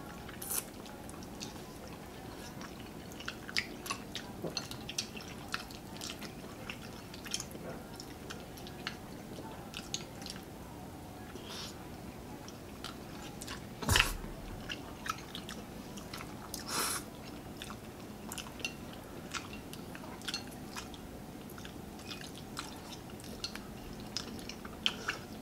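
Close-up eating sounds of spaghetti carbonara: chewing and slurping of noodles, with small clicks and smacks of spoons and forks throughout. A single louder knock comes about halfway through.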